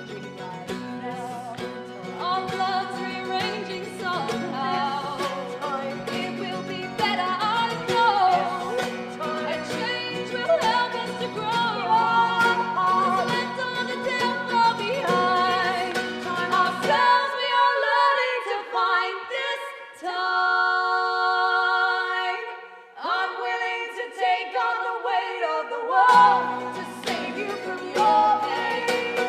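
Live band song with singing over guitar accompaniment. About 17 s in the low accompaniment drops away, a held chord rings for a few seconds, and the full band comes back in near the end.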